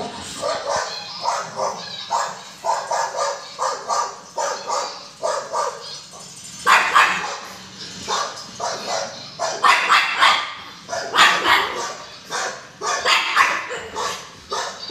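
A pug barking in a long run of short barks, softer at first and louder from about halfway through.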